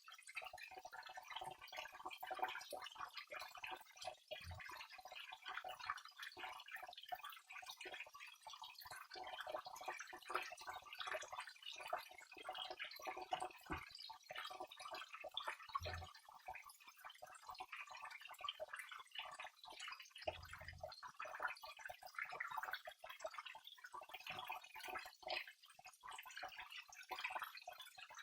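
Water of a waterfall splashing and trickling, a dense irregular patter of falling drops and small splashes.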